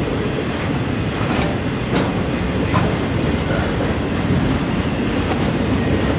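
Freight train of autorack cars rolling past with a steady rumble of wheels on rail, with a few sharper wheel clicks in the first three seconds.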